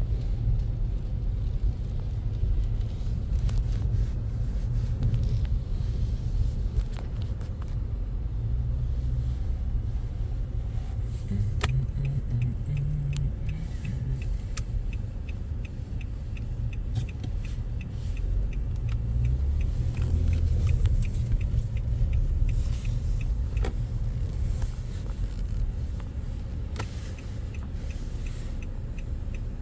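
Car cabin road rumble while driving, with a few knocks. About twelve seconds in, a steady ticking starts, the car's turn-signal indicator, and runs on nearly to the end.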